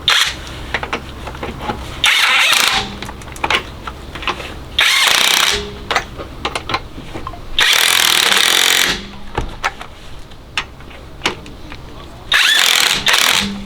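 Alloyman 20-volt cordless 1/2-inch impact wrench on its high setting, hammering lug nuts tight in about five short bursts with pauses between them.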